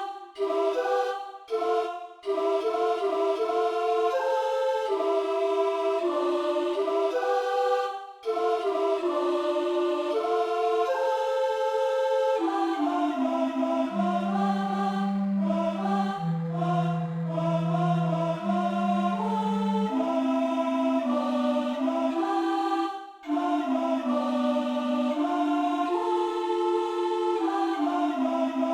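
Music: a slow melody of sustained, choir-like wordless voices with no beat, the notes held and stepping from pitch to pitch, with a few brief breaks.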